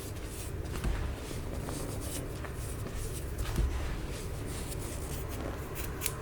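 Baking soda being crushed and crumbled by hand: soft, scattered crunches and crackles, with dull thumps about a second in and again about three and a half seconds in.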